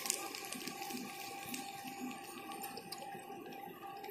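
Faint water sound: a steady, even hiss with scattered small ticks.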